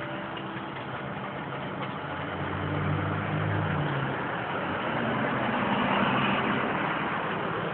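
Distant heavy-equipment diesel engine running, its pitch and loudness rising twice in the middle and then settling back.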